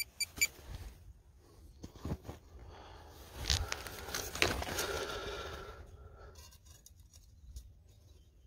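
Dry, lumpy clay soil being dug and scraped with a hand digging tool: a few sharp clicks at the start, then a couple of seconds of scraping and crunching earth around the middle that fades away.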